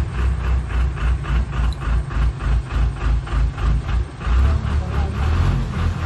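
Diesel engine of a backhoe loader working hard as it pulls a car out of floodwater, with a regular throb about four beats a second for the first four seconds or so, then steadier. Voices of onlookers are mixed in.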